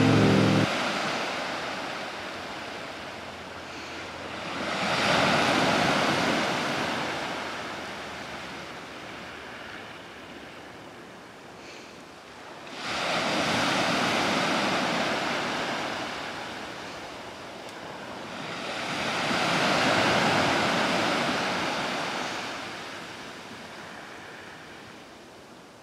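Ocean surf breaking on the shore: three swells of rushing wash about seven seconds apart, the middle one arriving suddenly, with a softer hiss between them.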